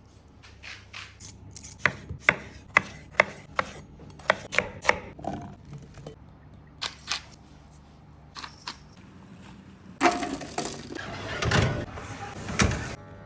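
A knife chopping on a wooden cutting board: sharp separate knocks, several in quick runs about two a second. Near the end comes a louder stretch of scraping and handling noise.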